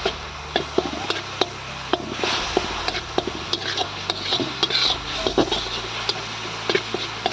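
Spoon tapping and scraping against a dish while spice pastes are added to the chicken, with irregular sharp clicks several times a second.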